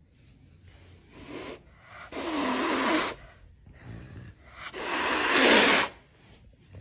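Three loud rasping breaths, like snoring, each a second or so long; the last is the loudest.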